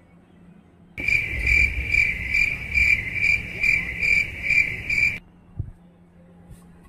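A loud, high-pitched pulsing chirp, a little over two pulses a second, that starts abruptly about a second in and cuts off just as suddenly about four seconds later, with a low rumble under it.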